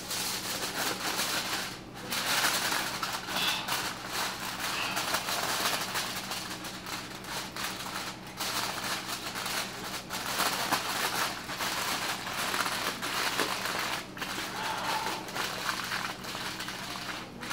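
Aluminium foil crinkling and rustling as it is folded and pressed shut around a packet of raw ground beef, with a few brief pauses.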